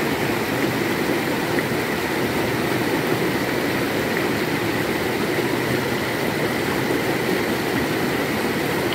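Mountain stream rushing steadily over rocks, white water spilling down a small cascade.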